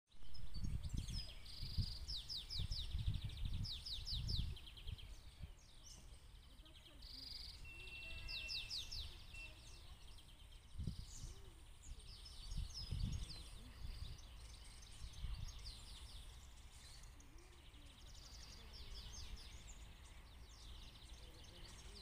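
Small birds singing, with repeated rapid trills over and over, and gusts of wind buffeting the microphone, heaviest in the first few seconds.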